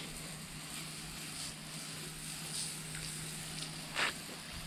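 Spray wand hissing as it sprays liquid onto a concrete driveway, over a steady machine hum, with one short louder swish about four seconds in.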